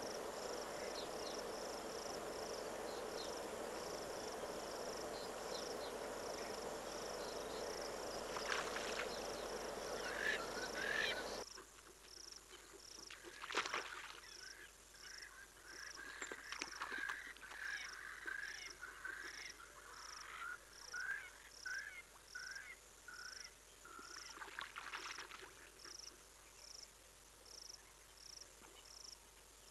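Dusk ambience at a bush waterhole: a high chirp repeats about once a second, with a run of shorter, lower chirping calls in the second half. A steady rushing noise fills the first part and cuts off abruptly after about eleven seconds, and a single sharp, loud sound stands out about 13 seconds in.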